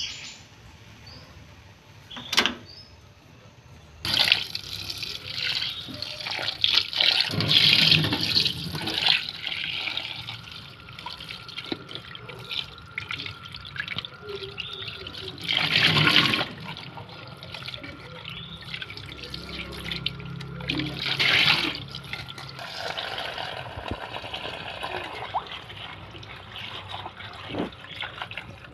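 Kitchen tap water running into a metal pot in a sink, splashing as hands rub and rinse pieces of boiled chicken and later vegetables. The running water starts about four seconds in, with louder splashes now and then.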